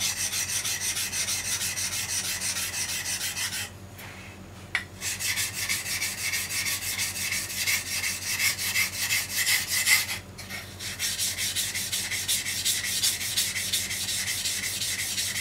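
Deba knife being stroked back and forth on a wet whetstone, a quick, even run of steel-on-stone scraping that stops briefly twice, about four and ten seconds in. The blade is being ground to work out chips in its edge from cutting bones.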